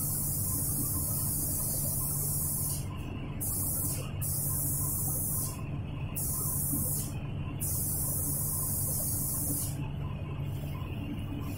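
Compressed-air paint spray gun hissing as the trigger is pulled in bursts, breaking off briefly four times and stopping about two seconds before the end. A steady low hum runs underneath.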